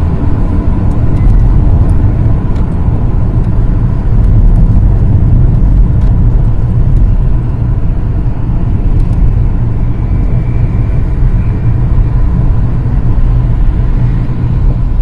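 Loud, steady low rumble of a car driving on a city street: road and engine noise heard from inside the moving car.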